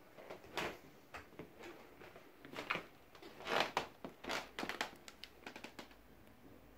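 Handling noise from a hand-held camera: an irregular string of rustles and clicks, thickest in the middle and thinning toward the end.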